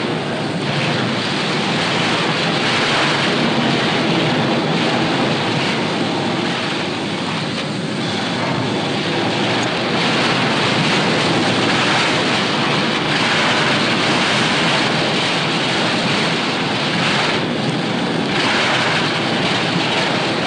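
Loud, steady rushing noise with no clear rhythm or tone, dipping slightly a few times.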